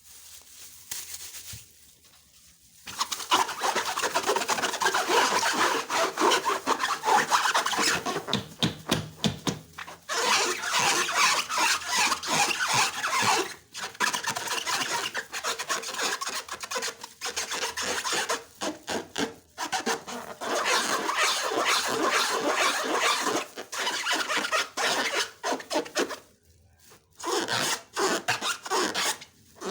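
Slime being worked by hand or with a tool, making a dense crackling, rasping rub that comes in long stretches with brief pauses.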